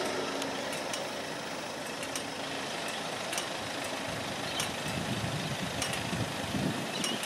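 Electric E-class tram running away along its track, a steady rumble that fades, then swells a little in the low end near the end. A sharp tick repeats about every second and a quarter over it.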